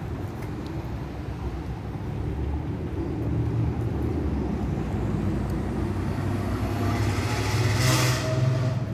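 Steady city traffic rumble, with a vehicle passing close by and swelling to the loudest point about eight seconds in before fading.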